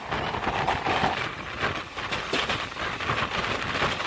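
Electric local train running along the track: a continuous rattle and clatter of wheels on the rails and the rocking carriage, heard from its open doorway.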